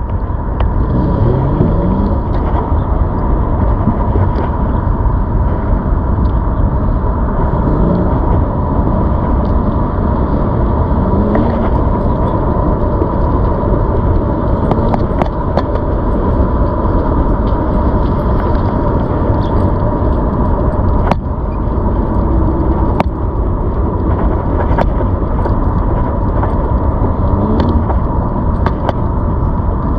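ZOOZ electric bike riding along: steady wind and road rumble with a steady whine, and a few faint rising tones and light ticks.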